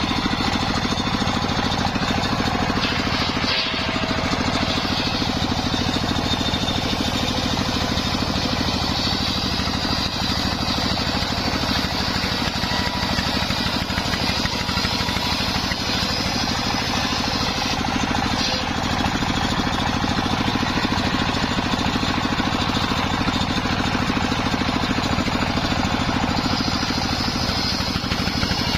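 Engine-driven circular sawmill saw running steadily while sawing wadang timber into beams. Its drone stays constant, with a higher whine that grows stronger for spells, about three seconds in, in the middle and near the end.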